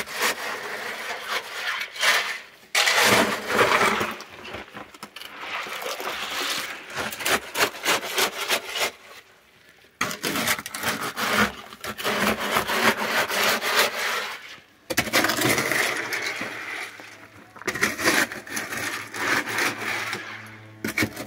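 A shovel scraping and churning wet concrete in a mixing trough: hand-mixing in repeated strokes, pausing briefly a few times.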